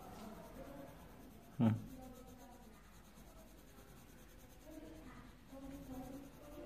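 Faint scratching and rubbing of paper on the table, with one sharp knock about one and a half seconds in.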